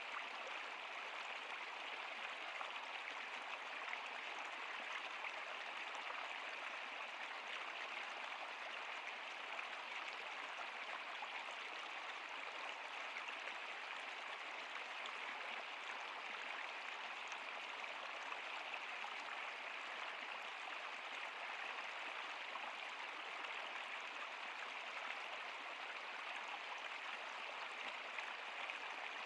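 A stream or small river running over rocks: a steady, even rush and babble of water.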